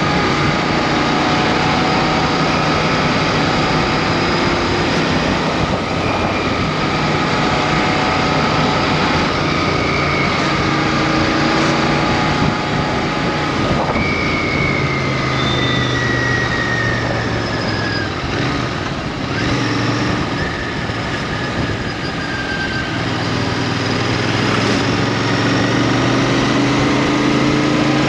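Royal Enfield Interceptor 650's parallel-twin engine running while riding, under steady wind and road noise. The engine pitch falls around the middle and climbs again near the end.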